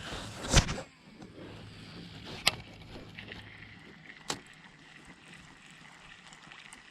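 A loud thump about half a second in, then two sharp knocks, over a low steady hum that cuts out partway through: handling noise aboard a small fishing boat.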